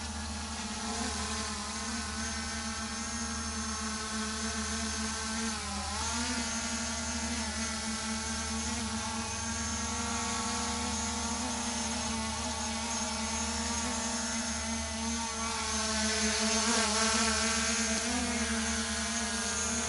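Quadcopter drone's propellers whining as it hovers and manoeuvres. The pitch wavers up and down as the rotors change speed, and the whine grows louder about three quarters of the way through as the drone comes closer.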